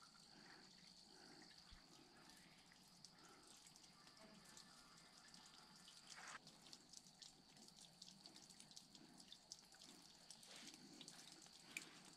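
Faint dripping and trickling of water seeping down a fern-covered cliff face, very quiet, with scattered small drips.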